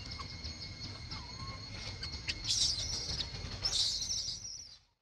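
Outdoor ambience: a steady high insect drone, with bird chirps in short bursts about halfway through and again near the end. It all fades out just before the end.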